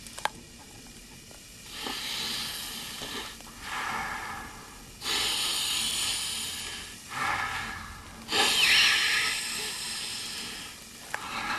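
A man breathes hard through a clear face mask, drawing about five deep, hissing, rasping breaths. The loudest breath comes about three-quarters of the way through.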